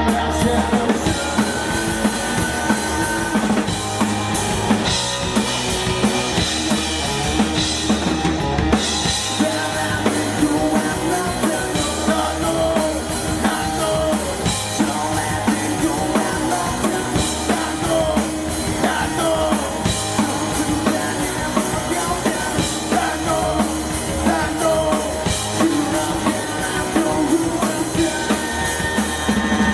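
Rock band playing live, with the drum kit out in front: steady bass drum and snare hits under cymbals, with guitar and bass.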